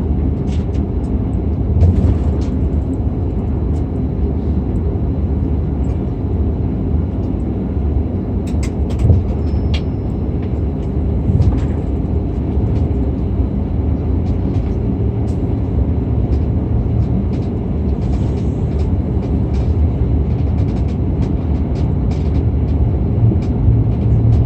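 Steady low rumble of cabin noise inside an Airbus A340-600 airliner, from airflow and its engines, with scattered light clicks and rattles.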